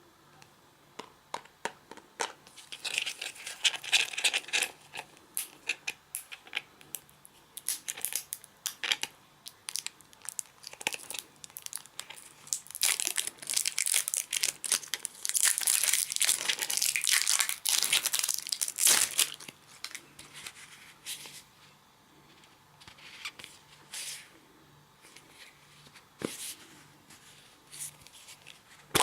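Slime being squished and stretched by hand, giving off many small pops and crackles. They come in thick runs a few seconds in and again through the middle, then thin out to scattered pops.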